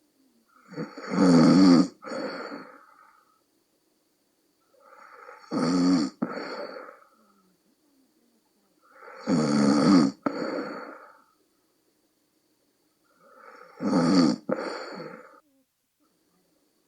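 A person snoring loudly in a low, croaking 'bullfrog' snore: four snores about four seconds apart, each in two parts with a short break near its loudest point.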